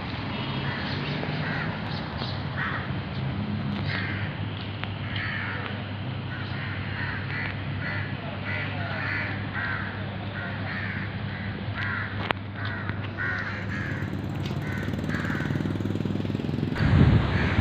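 Crows cawing over and over, a few short calls a second, over a steady low hum. A low rumble comes in near the end.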